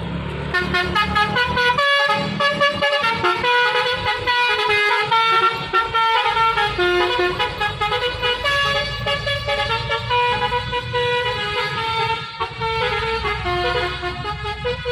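A Hino truck's telolet basuri horn playing a tune: a quick run of sustained horn notes stepping up and down in pitch, starting about half a second in, over the low running of the truck's engine.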